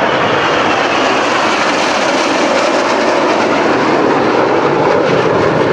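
Loud, steady jet noise from BAE Hawk T1 jets flying past in an aerobatic display.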